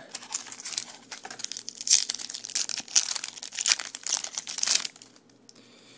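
Foil wrapper of a 2011 Topps Chrome baseball card pack crinkling as it is torn open by hand. Rapid crackles come and go, with the loudest near the middle, and stop about five seconds in.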